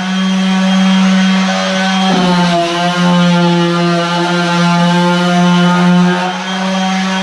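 Stanley FatMax 18 V cordless orbital sander running at a steady pitch with a constant hum, then switched off near the end, its pitch falling as the motor winds down.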